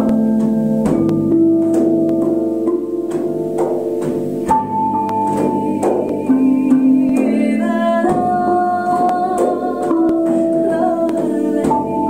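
Music of struck metal bells and gongs: several steady ringing tones held together, with frequent light strikes. The set of pitches changes about every three and a half seconds.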